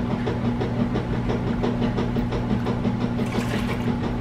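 Hot Instant Pot humming steadily with a fast, even rattle, and a short hiss about three seconds in as beef broth is poured into the hot inner pot.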